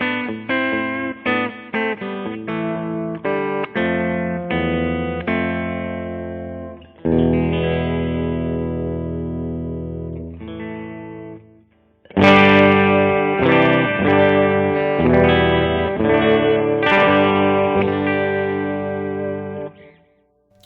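Electric guitar played through an amp on its bridge pickup, a Lace Alumitone humbucker split to single coil mode, giving a bright tone with less mid-range punch. A run of picked notes gives way to a ringing chord that fades about eleven seconds in, then after a short break strummed chords to the end.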